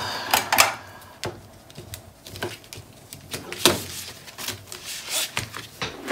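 Paper and cardstock being handled on a cutting mat: irregular rustles and light slaps as sheets are lifted, shuffled and laid down, with a sharper one about half a second in and another near the middle.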